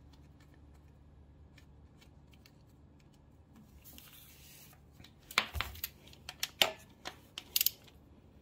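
Hand ratchet clicking in short, irregular bursts as the bolt holding a knock sensor on a Mercedes M119 V8 block is run down. Faint small taps of handling come first, and the sharper clicks start past the halfway point.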